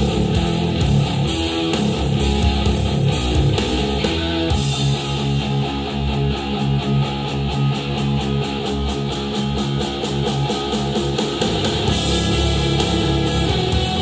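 Guitar-driven music played back through a pair of Edifier R1280Ts bookshelf speakers and picked up by microphones in the room. The arrangement changes about four and a half seconds in.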